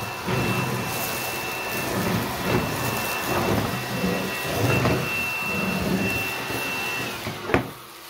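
Raven EOR001 100-watt cordless stick vacuum running at normal speed: a steady high motor whine over the rush of air, swelling and fading with each back-and-forth stroke of the floor head. The motor cuts off about seven seconds in, followed by a sharp click.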